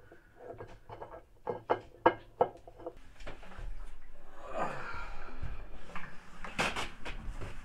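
Scattered light knocks and clatter, then scraping and bumping as the stainless steel wash basket of a top-load washer is lowered back into its plastic outer tub, with a couple of sharper knocks near the end.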